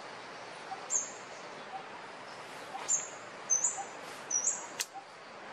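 Bird chirping: short, high-pitched chirps about a second apart, coming faster in the middle, over a steady outdoor hiss, with one sharp click near the end.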